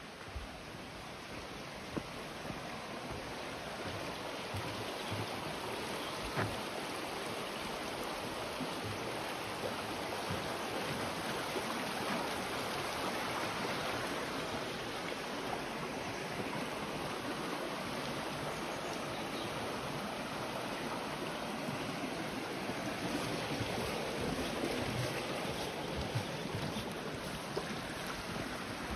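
A fast-flowing stream rushing steadily, building over the first few seconds and then holding even, with a few faint knocks.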